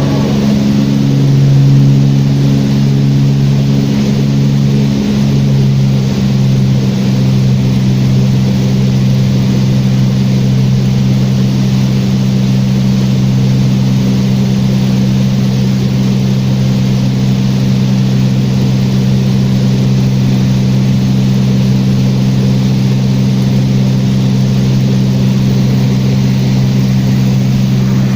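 Small propeller airplane's engine droning steadily in flight: an even low hum with a wash of air noise over it.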